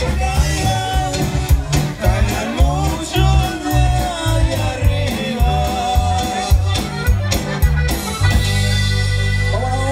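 A live Mexican regional band playing a song with a singer, a bouncing bass line and drum hits. About eight seconds in, the band holds one long chord.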